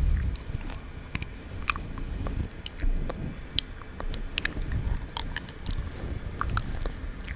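ASMR mouth sounds close to the microphone: irregular wet clicks and smacks, over a low rustling rumble.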